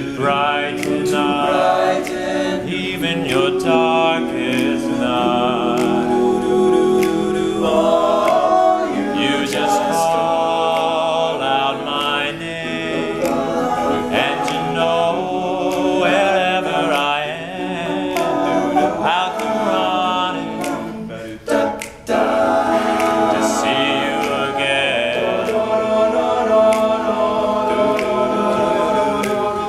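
All-male a cappella group singing close vocal harmony with a lead voice. The sound drops out for a moment about two-thirds of the way through.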